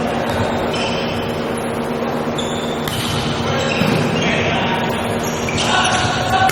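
Indoor volleyball match ambience: steady crowd noise and voices echoing in a large hall, with the thud of the ball being hit.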